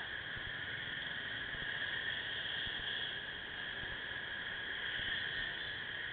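Steady, even hiss of riding noise picked up by a motorcycle-mounted camera's microphone in traffic. No distinct engine note or separate event stands out.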